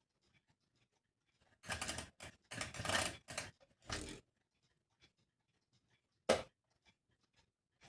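Hands and tools working on the cuckoo clock: a couple of seconds of scraping and rustling, then a single sharp click.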